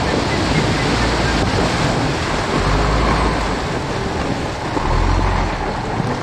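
Lifted off-road 4x4, a Land Rover Discovery, driving through a shallow river: a steady rush of splashing water over a low engine rumble that swells twice.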